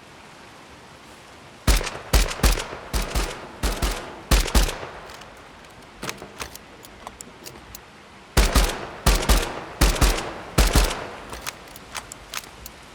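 Designed gun sound effects built with the Krotos Weaponiser plugin: bursts of rapid automatic gunfire with deep thumps, over a steady hiss of rain ambience. The shots start about two seconds in, thin out to a few scattered ones midway, then come thick again from about eight seconds.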